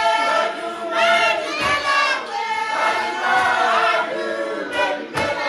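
A choir singing, several voices together in harmony.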